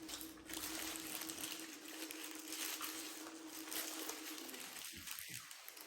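Eating noises from fast food: chewing and crinkling with many small crackles, over a steady low hum that stops about four and a half seconds in.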